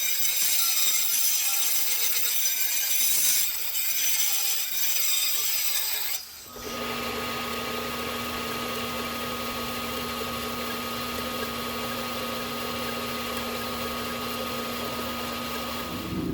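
Power tools at work on metal. First comes about six seconds of high, hissing grinding or sawing. After a sudden cut, a motor runs steadily with a constant hum and a higher whine.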